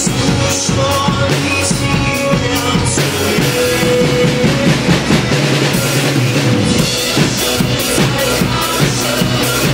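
Acoustic drum kit played along to a recorded song: a steady beat of snare and bass-drum hits with hi-hat and cymbal strikes, over the sustained chords of the backing music.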